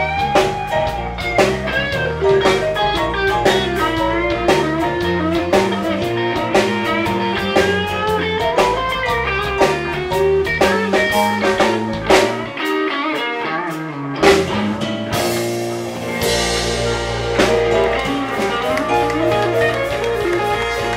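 Live blues band playing: a guitar lead with bent notes over bass and drums. About twelve seconds in the bass briefly drops out, then a cymbal crash brings the full band back in.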